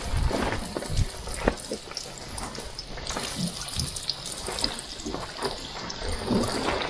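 Battered mangrove snapper fillets frying in hot oil in a pan, with a steady sizzle. Metal tongs click against the pan a few times as the fillets go in.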